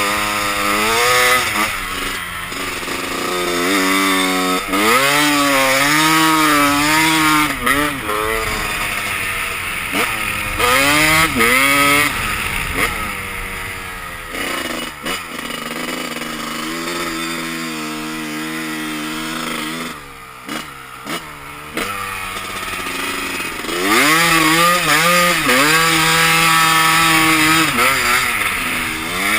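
Two-stroke dirt bike engine revving, its pitch rising and falling again and again as the throttle opens and closes. It drops quieter for several seconds past the middle, then comes back loud near the end.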